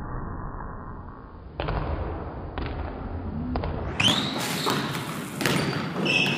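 A basketball thudding several times, bouncing on the hardwood gym floor and being caught and passed, each thud echoing in the gym. A couple of short high squeaks come in between the thuds.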